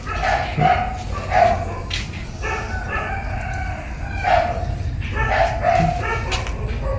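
Roosters crowing in the background, several drawn-out calls one after another, over a steady low rumble.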